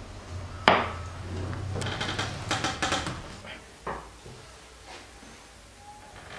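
Wooden screen-frame battens knocked and set down on a wooden tabletop: one sharp knock, then a quick run of clattering knocks, then one more knock.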